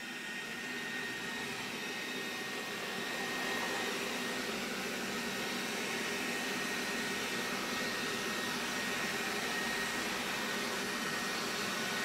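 Xiaomi Roborock V2 robot vacuum running: a steady whooshing fan noise with a thin high whine on top. It grows louder over the first few seconds, then holds steady.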